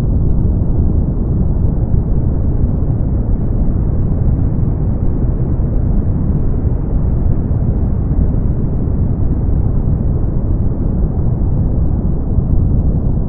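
Brown noise: a steady, deep rushing hiss, heavy in the bass with almost no treble, unchanging throughout.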